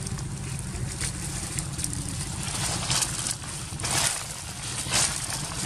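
Dry fallen leaves crunching and rustling underfoot in several brief swishes in the second half, over a steady low rumble.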